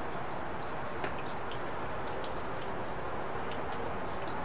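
Steady rain: a constant hiss with scattered individual drops ticking and dripping.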